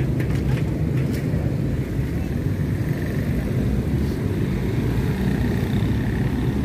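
Steady low rumble of road traffic passing, with a few faint clicks about a second in.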